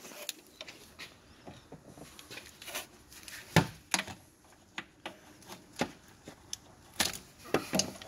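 Irregular clicks, taps and light knocks of gloved hands working the wiring connectors and terminals on an electric car's drive motor. The sharpest knock comes about three and a half seconds in, and a cluster of clicks comes near the end.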